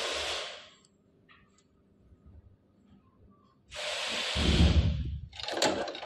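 KSL2880 button-attaching machine working a press cycle on knitted fabric: a hiss that fades out in the first second, small clicks while the button is loaded, then about four seconds in another hiss with a heavy low thump as the press comes down, and a shorter hiss just before the end.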